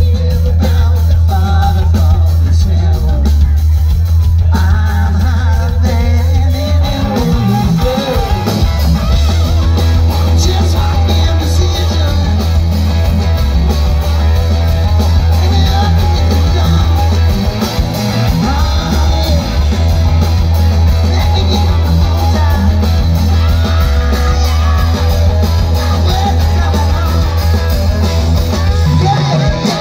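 Live rock band playing loud: electric guitars, bass guitar and drums, with singing. The deep bass is the strongest part, heavy and booming.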